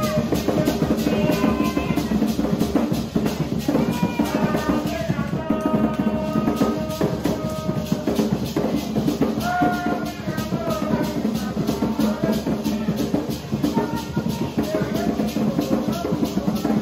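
Live Garifuna drumming: two hand-played barrel drums beating a fast, steady rhythm, with maracas shaking and voices singing over it.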